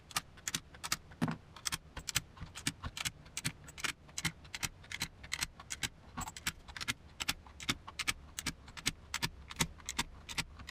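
Brass .223/5.56 rifle cartridges being pressed by hand, one after another, into a Magpul Gen M3 30-round polymer AR-15 magazine: a steady, irregular run of sharp clicks and metallic clinks.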